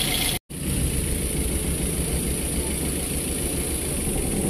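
Daihatsu Gran Max engine idling steadily while it misfires on cylinder 4, whose ignition coil has failed. The sound cuts out completely for a moment about half a second in.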